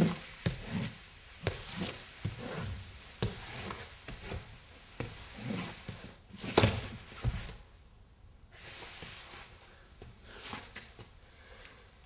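A man's body rolling and twisting on a floor: irregular thumps and knocks of limbs hitting the boards, with scuffing and rubbing of clothing against the surface. The loudest thump comes a little past the middle, followed by a brief lull.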